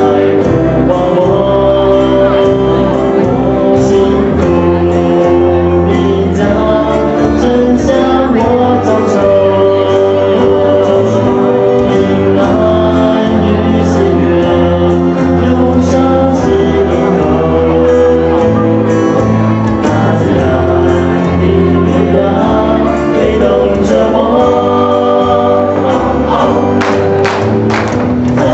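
Music: a song sung by voices over instrumental backing, with a steady low bass line.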